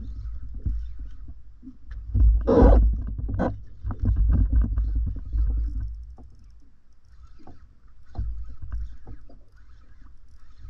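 Low rumble of wind and water on an inflatable kayak, with scattered knocks and clatter as a kayak paddle and fishing rod are handled on board; a loud rustling burst about two seconds in.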